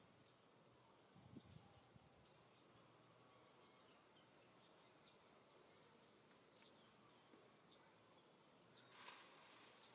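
Near silence: faint outdoor ambience with small high chirps scattered through it, a few soft low thumps early and a short hiss about nine seconds in.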